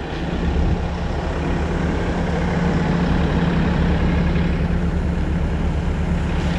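Heavy engine idling steadily: a low, even drone with a fast, regular throb.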